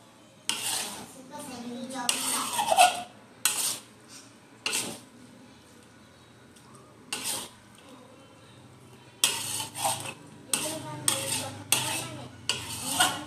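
Metal spatula scraping and knocking against a metal wok as fried noodles are stir-fried and tossed. The strokes come in short bursts with pauses between them, then run closer together over the last few seconds.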